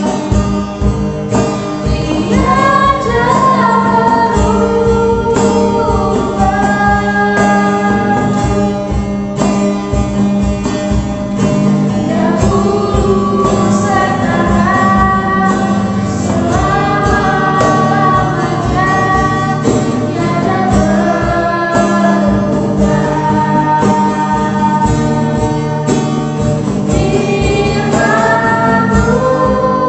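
A small group of young singers performing a worship song together, with strummed acoustic guitar and a cajón beat.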